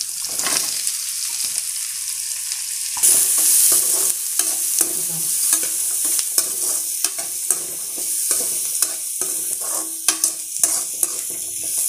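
Diced kohlrabi (noolkol) frying in oil with onions in a metal kadai, stirred with a perforated steel spatula that scrapes and clicks against the pan. The sizzle grows louder about three seconds in, with frequent sharp taps of the spatula on the metal from then on.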